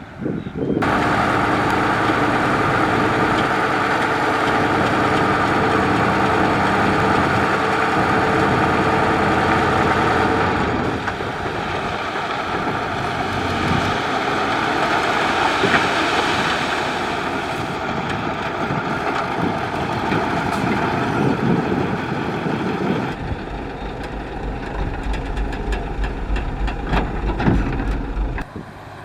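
Heavy diesel engine of a construction vehicle running steadily. A deep, low rumble comes in over the last few seconds.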